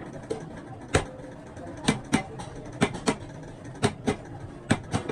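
Repeated sharp hammer blows, about nine, mostly in quick pairs roughly once a second, over a steady low workshop hum, typical of hand work on a truck clutch plate.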